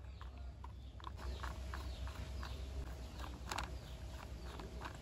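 Small screwdriver driving a screw into the plastic body of a toy car: faint, irregular clicks and ticks of the screw and driver working in the plastic, with one sharper click about three and a half seconds in.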